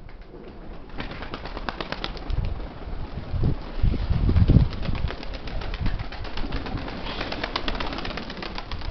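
Domestic pigeons cooing close by, over a dense patter of short clicks, with gusts of wind buffeting the microphone and rumbling loudest about four to five seconds in.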